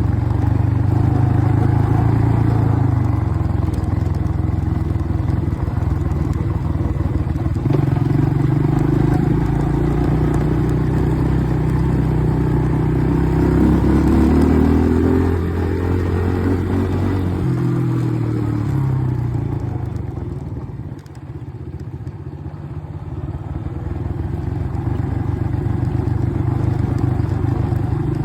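ATV engine running while riding, rising in pitch to a peak about halfway through, dropping back, easing off to its quietest a little after two-thirds in, then picking up again.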